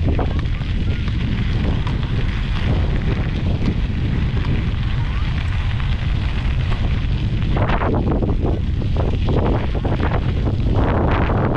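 Wind buffeting the microphone: a steady low rumble, with louder gusts about eight seconds in and again near the end.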